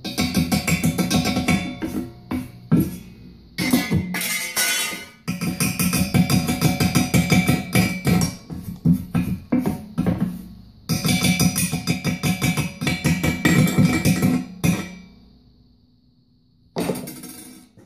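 Chipping hammer striking weld slag off a welded steel post in rapid bursts of blows, the steel ringing under each run. The strikes stop for pauses and go quiet for about two seconds near the end before one last short burst.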